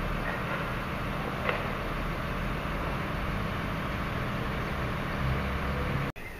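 Steady low engine rumble of idling heavy machinery, with one sharp click about a second and a half in. The sound cuts off abruptly shortly before the end.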